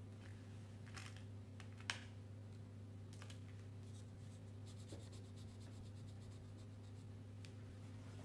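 Faint scratching of a crayon rubbed back and forth over paper in quick strokes, mostly in the second half, with a couple of sharp clicks near the start as crayons are handled in their box. A steady low hum runs underneath.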